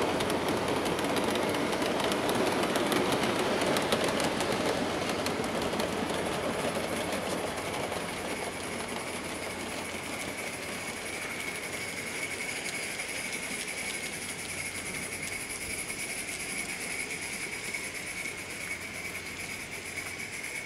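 Garden-scale live-steam train behind a coal-fired Accucraft K28: the cars roll close by, their wheels clicking over the track, and the sound fades after about eight seconds as the train draws away. A steady high tone comes in about halfway.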